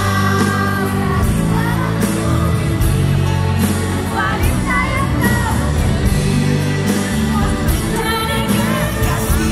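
Live pop song: a woman singing into a microphone over a band with a string section and a steady beat, heard loudly from among the audience.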